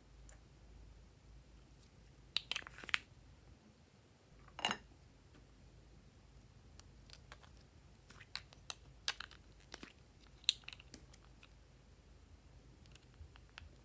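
Light clicks and taps from small plastic lip-balm pots and a plastic spatula being handled. They come in scattered clusters: a few about two and a half seconds in, one near five seconds, and a run between eight and eleven seconds.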